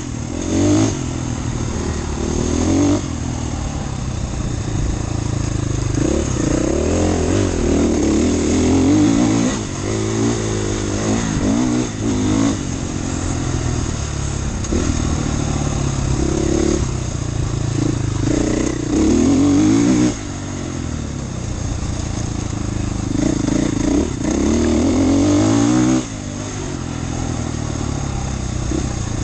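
Husqvarna FE450's single-cylinder four-stroke enduro engine being ridden, its pitch rising and falling as the throttle is opened and closed again and again, with louder surges every few seconds.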